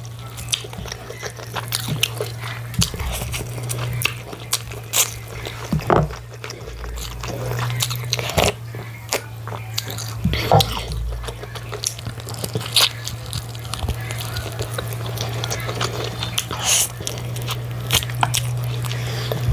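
Close-miked mukbang eating sounds: a person biting and chewing chicken with rice and stew, with wet chewing, lip smacks and many sharp mouth clicks, over a steady low hum.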